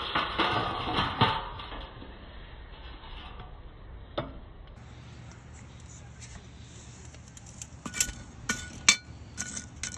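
Fresh charcoal briquettes being dumped and set on a cast-iron camp oven and its lid. A clattering rattle in the first second or so, a single clink about four seconds in, then a run of sharp, ringing clinks near the end.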